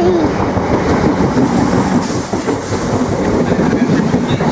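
Class 313 electric multiple-unit train moving past at close range, its wheels clattering over the rail joints along with steady running noise.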